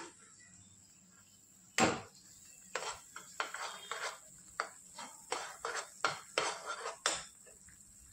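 Metal kitchenware (steel pots, plates and spoons) clanking and clattering: one sharp clank about two seconds in, then a quick run of short clinks and scrapes.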